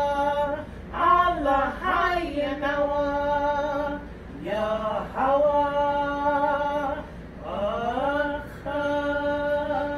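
Unaccompanied voices singing a slow worship chant of praise, in long held notes grouped in phrases of a few seconds with short breaks between them.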